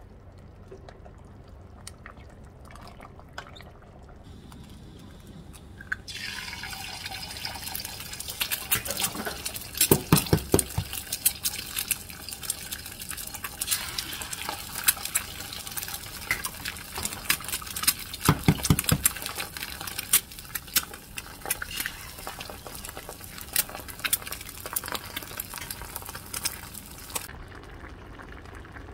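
Eggs sizzling and crackling in hot oil in a multi-hole egg frying pan. Two clusters of knocks, about ten and eighteen seconds in, come as eggs are cracked. Before that, quieter stirring of kimchi stew in a steel pot; near the end the sizzle stops.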